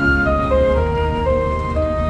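Background music: a slow melody of held notes stepping up and down over a steady low drone.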